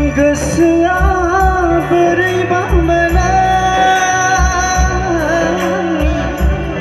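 Live band playing a Bodo wedding song through a loud PA system: a singer's melody over electronic keyboards and a deep, repeating bass-drum beat. The singing comes in just after the start.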